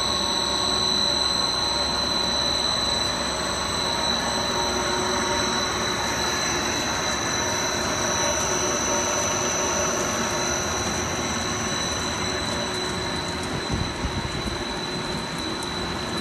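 Pet chew extruder line running: a steady industrial machine noise with a high-pitched steady whine, from the extruder drive and the wire-mesh conveyor. A few light knocks come about three-quarters of the way through.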